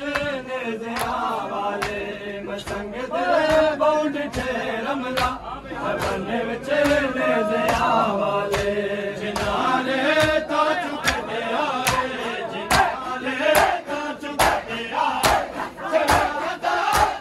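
Male voices chanting a noha, a Shia lament, with a crowd of mourners joining in. Hands slap bare chests in rhythm (matam), and the slaps grow sharper and more frequent in the last few seconds.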